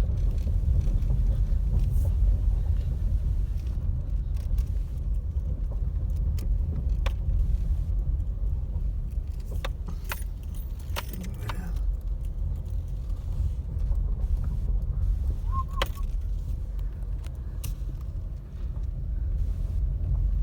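Car cabin on a rough dirt road: a steady low rumble from the tyres and engine, with scattered light rattles and clicks as the car jolts over the bumps.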